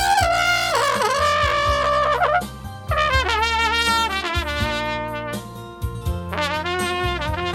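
Trumpet playing a slow, sustained melody with vibrato and bent notes over an accompaniment with steady low bass notes. The trumpet is picked up acoustically, with no microphone or amplification on it.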